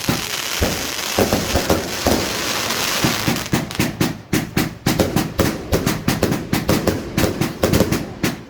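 Fireworks going off in a rapid run of bangs and crackles, several a second, with a steady hiss over the first few seconds.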